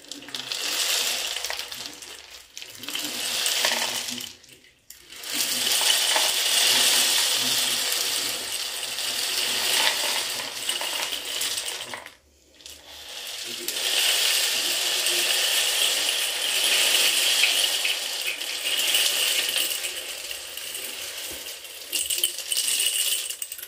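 Cardboard-tube rain stick being tipped over several times, dried green lentils and small pasta shells cascading past nails inside in a steady pattering rush. The flow stops briefly about 2.5 s, 5 s and 12 s in, as the tube is turned over, then restarts and swells again.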